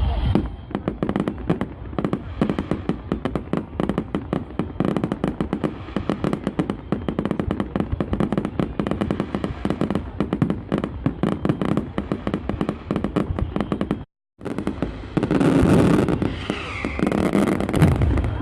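Fireworks display: a rapid, dense barrage of bangs and crackling reports, many a second. About fourteen seconds in the sound drops out for a moment, then louder bursts follow.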